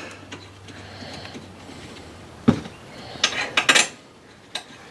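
Metal tools and parts clinking against one another: a sharp clink about two and a half seconds in, a quick cluster of clinks around three and a half seconds, and one more near the end.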